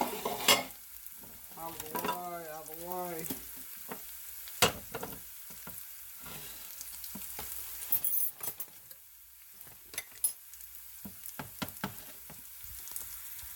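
Sliced onions sizzling as they sauté in a stainless steel skillet, a steady frying hiss. Scattered knocks and clinks of dishes and utensils being moved around sound over it.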